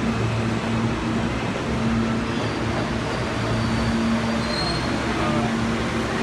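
Kawasaki R160B New York City subway train pulling in along the platform and slowing to a stop, with a steady low hum from the train over the station noise. A faint high tone sounds briefly a little past four seconds in.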